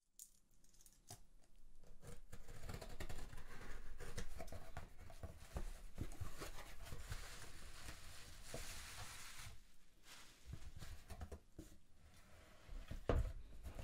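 Scissors cutting the packing tape on a cardboard box, then cardboard flaps and plastic bubble wrap rustling and crackling as the package is unpacked. A single sharp knock near the end.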